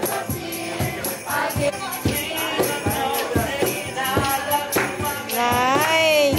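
Christmas carolers singing a carol to a steady tambourine beat; near the end a voice holds one long, wavering note.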